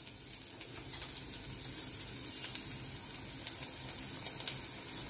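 Ground-tomato masala cooking in ghee in a nonstick kadhai, sizzling steadily and quietly with faint scattered crackles.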